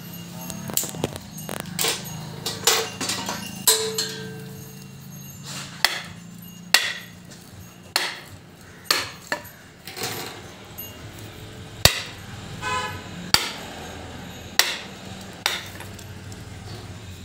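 Hammer striking a wooden drift to tap coil windings down into the slots of a motor stator during rewinding: sharp, irregular knocks roughly one a second, each with a short ring. A steady low hum runs under the first half.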